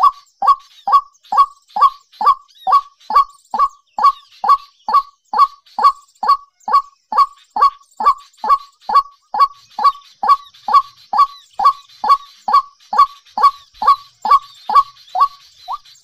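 A bird call repeated very evenly a little over twice a second, each a short note falling in pitch, with faint higher chirps of other birds behind it.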